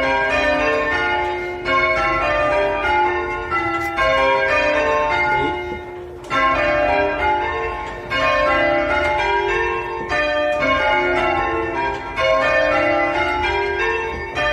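Church bells rung in changes (English full-circle change ringing): a steady run of bell strokes one after another in repeating rows, with brief gaps between some rows.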